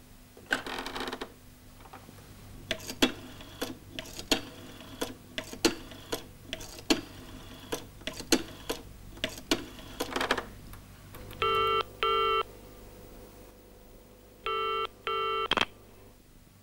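Telephone being dialed, a run of irregular clicks over several seconds, then a double ring sounding twice: two short rings, a pause of about two seconds, two more. A click near the end as the call is picked up.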